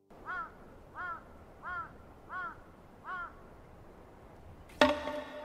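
A crow cawing in a steady series of five arched caws, about two-thirds of a second apart. About five seconds in comes a sudden sharp knock that rings on briefly; it is louder than the caws.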